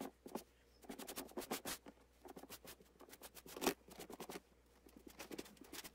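Paintbrush bristles stroking white chalk paint across the face of a sign, a faint, irregular scratchy brushing with one louder stroke a little past the middle.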